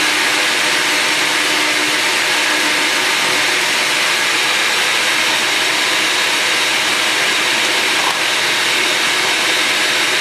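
Countertop blender with a glass jar running steadily, churning water and essential oils together into an emulsion.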